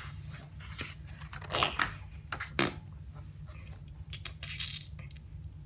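Paper pages of a paperback book being handled and turned, with several short rustles.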